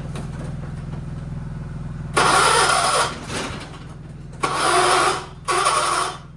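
1976 John Deere 300 lawn tractor being cranked in three short, loud bursts of about a second each over a steady low hum, without catching. The owner suspects a failing starter and a damaged flywheel, with a battery too weak to turn it over properly.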